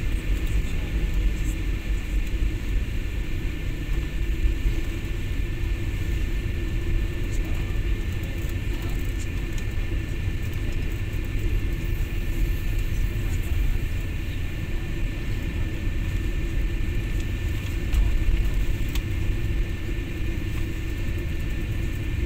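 Cabin noise of a jet airliner taxiing just after landing: a steady low rumble of wheels and engines, with a faint constant whine above it.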